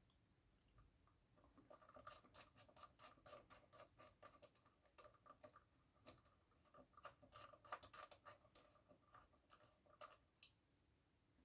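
Faint, rapid small clicks, taps and scratches of iPhone 6s parts being handled and fitted by hand, running for most of the time and stopping shortly before the end.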